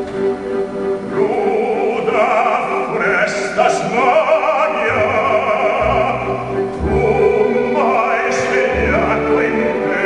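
Operatic baritone singing with a wide vibrato over an orchestra. A sustained orchestral note runs underneath, and the voice comes in about a second in.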